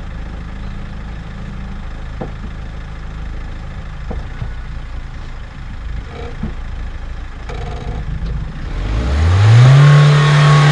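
Mahindra Thar SUV's engine running low and steady in four-low, with a few light knocks. About nine seconds in it revs up sharply and holds high revs as the Thar climbs a steep sandy slope.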